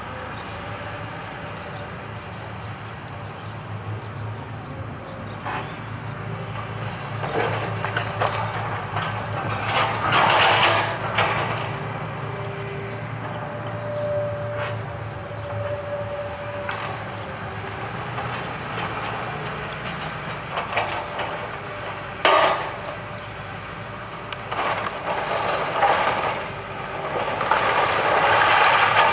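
Hitachi tracked excavator's diesel engine running steadily while its demolition grab crunches and splinters timber and rubble. Loud crashes come about ten seconds in, about twenty-two seconds in, and near the end.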